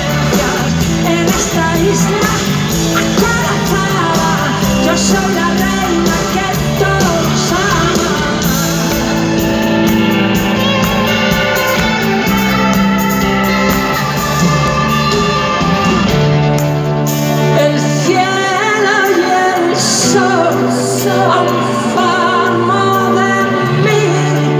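Amplified live pop-rock band playing a song with singing. The deep bass drops away about three-quarters of the way through.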